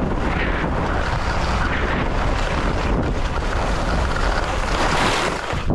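Wind buffeting the camera microphone with a low rumble, over the steady hiss and scrape of skis sliding across snow, which swells about five seconds in.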